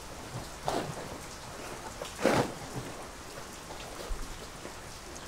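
Steady rain falling, with two brief louder rustles, about one second in and again a little after two seconds.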